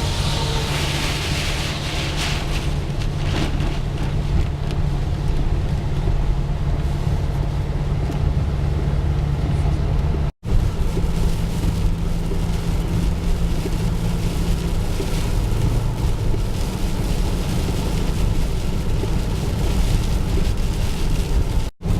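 Volkswagen Vanagon driving on a snowy highway, heard inside the cab: a steady engine hum with tyre and road noise. The sound cuts out abruptly for a moment about ten seconds in and again near the end.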